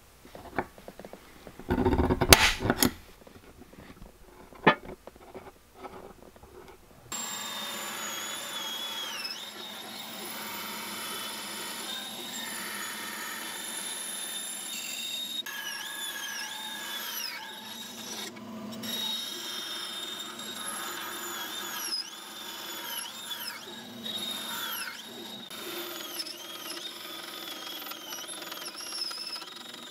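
A few sharp clicks and taps at first, then a bandsaw running and cutting brass sheet. It makes a steady sound, with repeated high squeals that fall in pitch as the blade bites into the metal.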